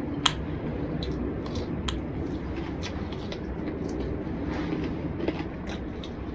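Eating rice and chicken curry by hand: fingers squishing rice on a plate and mouthfuls being chewed, with many small wet clicks and smacks over a steady low rumble. A sharp click stands out about a third of a second in.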